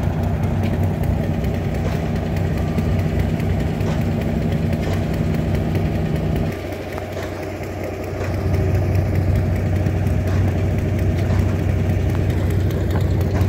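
Antique engines running steadily at idle. About six and a half seconds in the sound drops for a second or so, then one engine's low, even running takes over.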